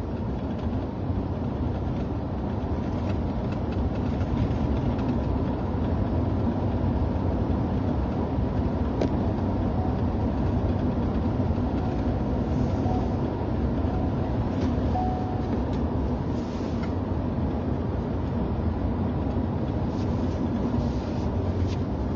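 Steady road and engine noise inside a moving vehicle's cabin while driving, with a few faint ticks.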